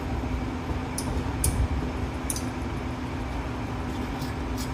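A few sharp metallic clicks of bolts and tools being handled as a turbo compressor housing is bolted on, over a steady low shop hum.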